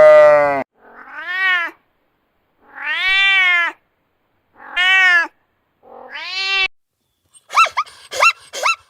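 Domestic cat meowing four times, each meow rising and then falling in pitch. It is preceded by the tail of a loud bleat at the very start and followed near the end by a quick run of short, sharp yelps.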